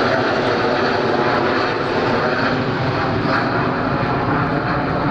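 Boeing 737 freighter climbing out after takeoff, its twin jet engines at climb power: loud, steady jet engine noise.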